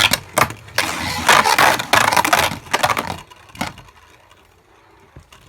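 Two Beyblade Burst tops spinning and colliding in a plastic stadium: a dense scraping whir broken by sharp clacks, which dies down about three seconds in, leaving only a few faint clicks.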